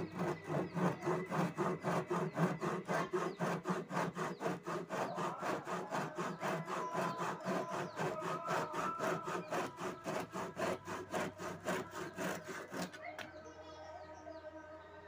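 Rapid, even rasping strokes, about four a second, like back-and-forth rubbing or sawing, stopping about thirteen seconds in.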